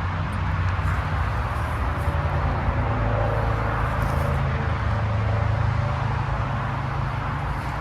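Outdoor air-conditioner condensing unit running: a steady whoosh of the condenser fan over a low, even compressor hum.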